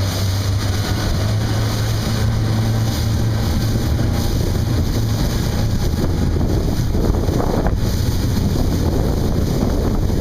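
A boat's Honda outboard engines running under way, a steady low hum that is strongest in the first half. Heavy wind buffets the microphone and water rushes past the hull.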